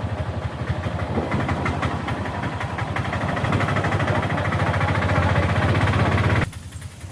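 A motor vehicle engine running steadily under way, slowly getting louder, then dropping off sharply near the end.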